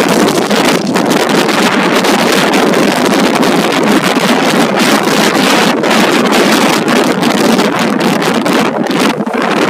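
Loud wind buffeting the microphone of a moving motorcycle, a steady rushing noise that gusts up and down throughout.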